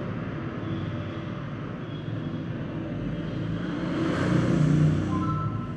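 Rumbling noise of a passing vehicle, swelling about four seconds in and fading near the end.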